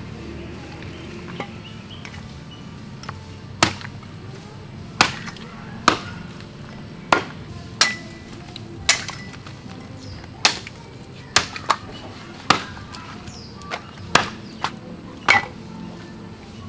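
A heavy blade chopping a goat carcass into pieces: about fourteen sharp, uneven strikes, roughly one a second, starting a few seconds in.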